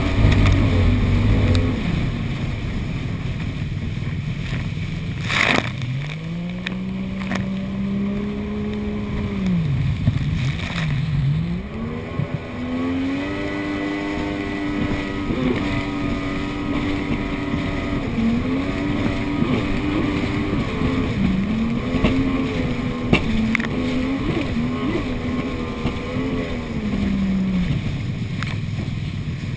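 Jet ski engine running at speed on open water. Its pitch climbs, holds and drops several times as the throttle is opened and eased off, over a steady rush of wind and water spray.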